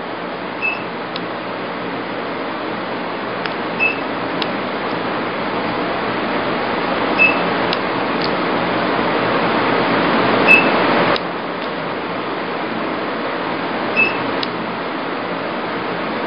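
E-light (IPL + RF) beauty machine firing its hair-removal handpiece: a short high beep about every three and a half seconds, five in all, each marking a light pulse, with faint clicks. Under it runs a steady hiss that grows louder and drops suddenly about eleven seconds in.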